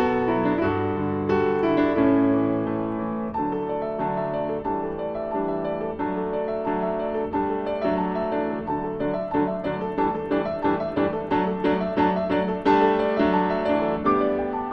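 Background piano music: a solo piano playing sustained chords and a melody, the notes quickening about halfway through.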